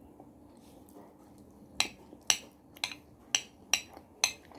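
Metal fork clinking against a dish while spaghetti is gathered. About six sharp clinks come roughly half a second apart, starting about two seconds in.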